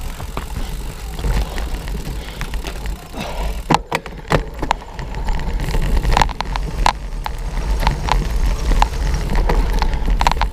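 Cyclocross bike rattling over a bumpy dirt and grass course, with frequent sharp clicks and knocks, over a steady low rumble of wind on the bike-mounted camera's microphone.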